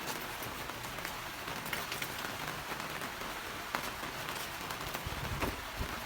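Steady rain falling: an even hiss with scattered louder drops ticking close by.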